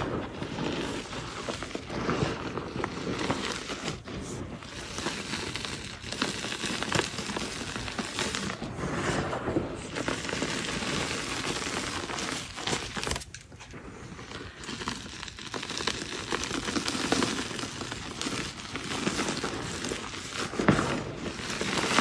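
Hands digging into and squeezing a pile of crushed, purple-dyed gym chalk powder: a continuous dense crunching and crackling as the chalk crumbles and rubs between the fingers, with a short lull a little past halfway.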